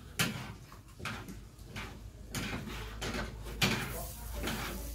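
Kitchen knife chopping a red pepper on a plastic cutting board: a handful of sharp, uneven knocks of the blade against the board.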